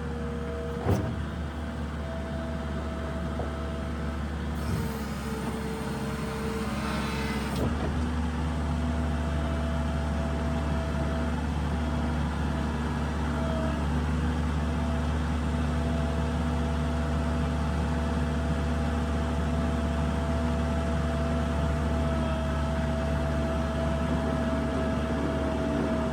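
New Holland LS170 skid steer's diesel engine running steadily with a constant whine over it. There is a sharp knock about a second in, and a hiss for about three seconds, roughly five to eight seconds in.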